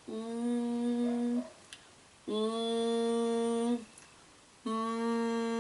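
A woman humming a closed-mouth 'mmm', the sound of the consonant M, three times at one steady pitch, each held about a second and a half with short breaths between.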